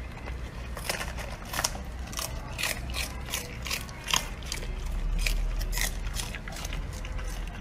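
A puppy biting into and chewing crisp napa cabbage leaves: irregular wet crunches and snaps of the leaves, two or three a second, over a low rumble.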